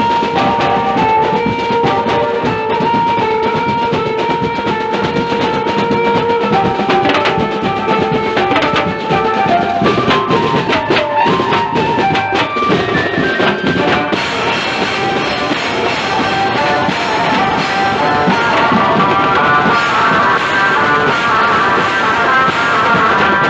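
Street band of snare drums, bass drum and cymbals playing a fast, dense festive beat, with a stepping melody line carried over the drums.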